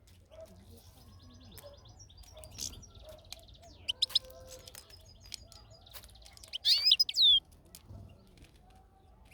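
European goldfinch twittering and calling: faint continuous twitter, a few sharp loud calls about four seconds in, and a louder burst of quick slurred calls near seven seconds.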